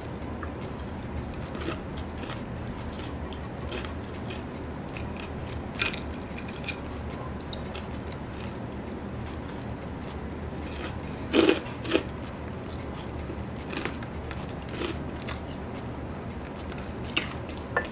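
A person biting and chewing crispy fried chicken wings, with scattered crunches and two louder bites close together about two-thirds of the way through.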